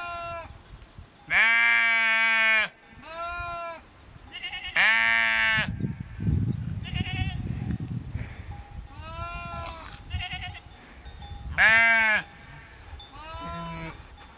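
A flock of sheep bleating: long, loud bleats every few seconds, with fainter answering bleats from other animals in between.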